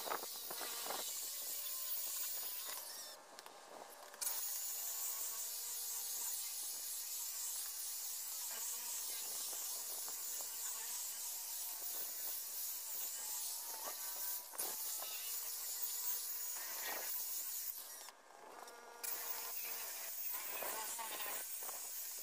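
Corded electric car polisher running with its foam pad against the paint, a steady high hiss with a faint motor whine. It drops out briefly twice, a few seconds in and again near the end.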